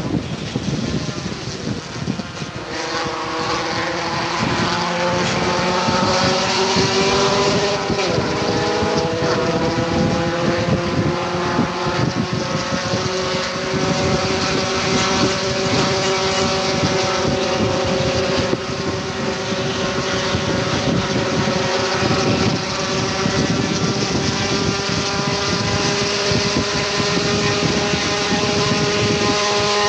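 Cabin sound of a 1988 Honda CRX Si race car's four-cylinder engine under hard acceleration, heard over wind and road noise. After a couple of seconds the engine note climbs steeply, then runs at high revs with the pitch creeping slowly upward, dipping briefly twice in the second half.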